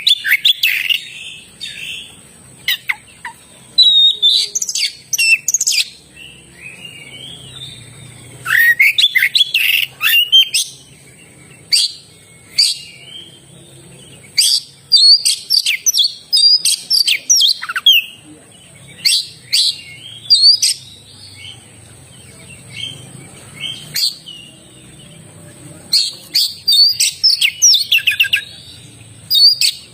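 Oriental magpie-robin (kacer) singing loudly and continuously: bouts of sharp, varied whistles and chirps come every second or two, with short pauses between them.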